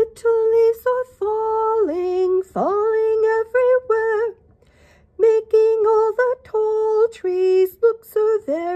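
A woman singing a simple tune unaccompanied, in short phrases of held notes, with an upward swoop in pitch about two and a half seconds in.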